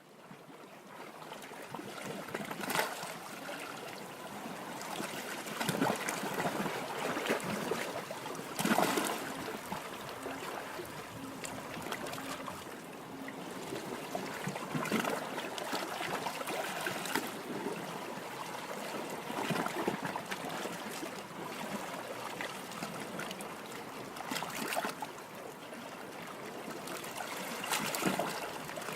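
Water rushing and splashing along the hull of a small sailing boat under way, with sharper splashes every few seconds.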